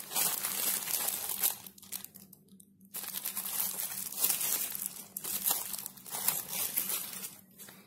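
Clear plastic wrapping around a fur slipper crinkling as it is handled, with a brief pause about two seconds in.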